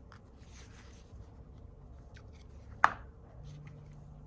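Small tools and phone parts being handled on a repair bench: light rustling and soft clicks, with one sharp click about three seconds in. A faint low hum sets in shortly after.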